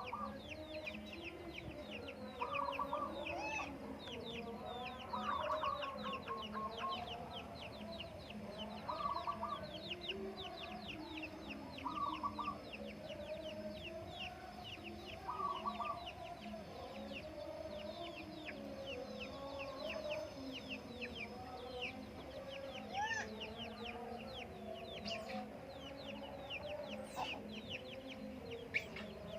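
Zebra doves (perkutut) cooing, a short phrase repeated about every three seconds, over a steady run of quick high chirps and the clucking of domestic fowl.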